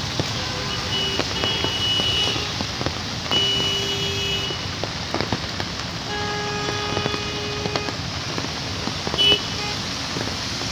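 Steady rain on a wet city street with traffic passing. A vehicle horn sounds for about a second roughly three seconds in, and again for about two seconds around six seconds in.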